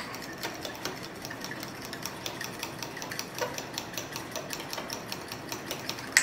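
A metal fork stirring a thick mayonnaise-based sauce in a small glass bowl, clicking and scraping against the glass several times a second, with one sharper knock near the end.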